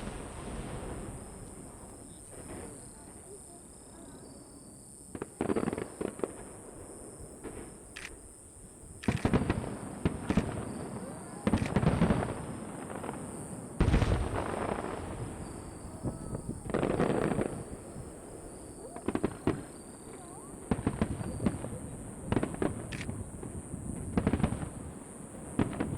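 Aerial fireworks shells bursting overhead: a run of booms at irregular intervals, each trailing off in rumble and crackle, the loudest about fourteen seconds in.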